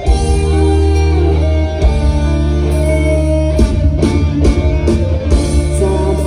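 Live band playing an instrumental song intro through a concert PA: guitar lead over a heavy, loud bass line, before any singing comes in.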